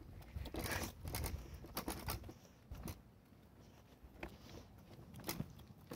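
Faint, irregular taps and rustles from a hand-held phone being carried along on a walk, over a low wind rumble on the microphone.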